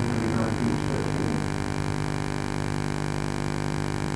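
A steady hum of several held tones.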